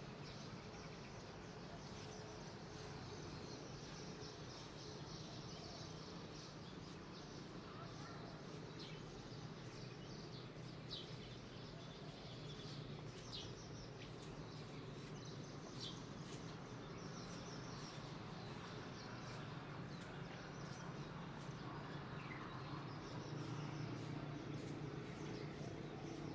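Faint outdoor ambience: scattered short, high bird chirps and insect calls over a steady low hum.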